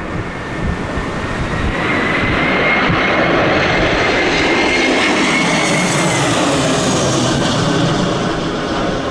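Landing aircraft's engines passing close by: the noise swells over the first two seconds, holds with a steady high whine in the middle, then slowly fades. Gusty wind buffets the microphone.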